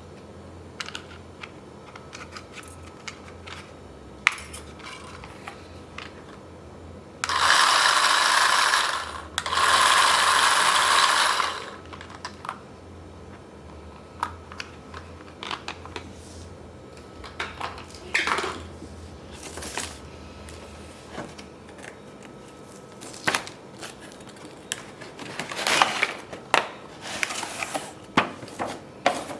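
Plastic toy and packaging being handled: scattered clicks and knocks throughout, with two harsh noisy scrapes of about two seconds each roughly a quarter of the way in, and a busier run of clicks and rustles near the end.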